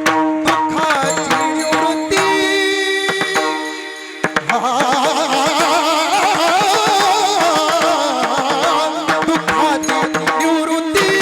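Varkari kirtan music. A mridang plays over steady held harmonium notes, then the drum drops out and a voice sings a long, wavering, ornamented phrase. The drumming comes back near the end.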